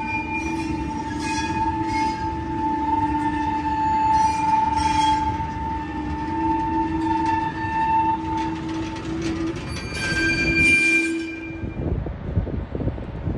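Loaded ballast hopper wagons rolling slowly past at close range, their steel wheels squealing in a steady, wavering pitch over a low rolling rumble. About twelve seconds in the squeal cuts off and a low rumble with wind noise takes over.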